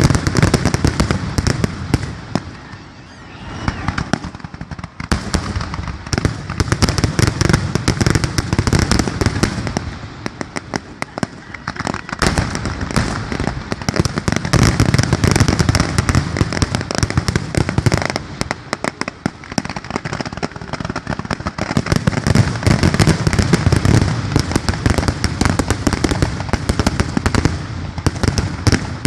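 Fireworks finale barrage: a dense, continuous run of shell bursts and crackling, thinning briefly about three seconds in and again around the middle before picking back up.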